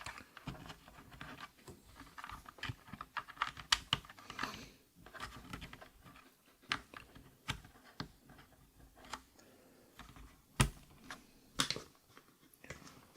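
Quiet, irregular plastic clicks and light scraping from a mechanical keyboard being worked on by hand, as Akko Rosewood switches are lined up and pressed into its hot-swap sockets. A couple of sharper clicks come near the end.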